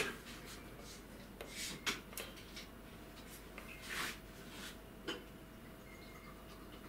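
Soft clicks and taps of a finger pressing the keypad of an OWEN TRM251 programmable temperature controller, a few irregular presses with the loudest about four seconds in, over a faint steady hum.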